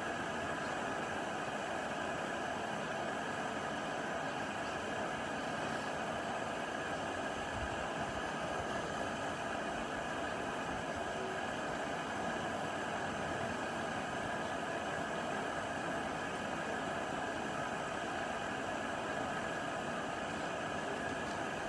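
Planet X Jobsworth X2 gas canister stove burning steadily with the gas turned up as it heats a pot of water: a constant, even hiss.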